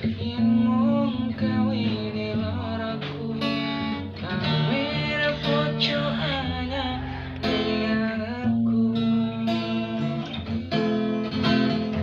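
Guitar-led music: an instrumental passage with strummed acoustic guitar and a gliding melodic line over it.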